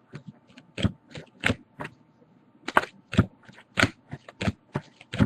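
Baseball cards being handled and flipped through one after another: a quick, irregular run of short cardboard snaps and taps, a dozen or so, with a brief pause about two seconds in.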